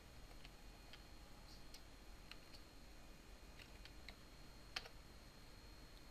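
Faint computer keyboard keystrokes: a few scattered key clicks, then one louder click a little under five seconds in as the Enter key is struck.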